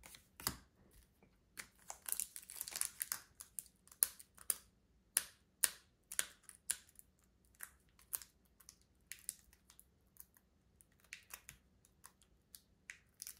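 Pokémon trading cards being handled: cards flipped and slid against one another, in an irregular run of sharp clicks and short rustles.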